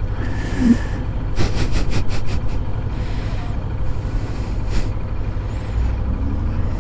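Honda motorcycle engine idling steadily in slow traffic. Two short hisses and a quick run of about seven sharp clicks, a second and a half to two and a half seconds in, sit over it.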